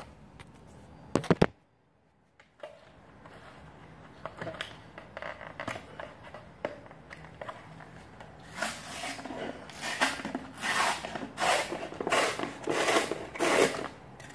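Sealed mouth of a plastic supplement tub being picked at and torn open by hand: scratchy crinkling and scraping that builds into a run of about ten short tearing strokes, roughly two a second. A couple of sharp clicks come about a second in, and the sound then drops out for about a second.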